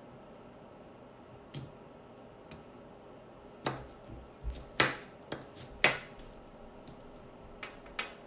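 Chef's knife cutting raw sweet potatoes into chunks on a plastic cutting board: a string of sharp, irregular knocks as the blade goes through and strikes the board, the loudest near the middle.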